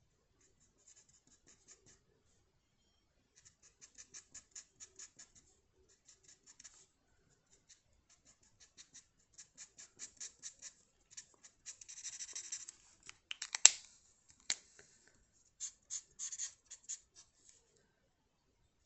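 Drawing strokes scratching across paper in short rhythmic runs of several strokes a second. About two-thirds of the way in, a denser scribble is followed by a sharp click, the loudest sound, and a second, smaller click a moment later.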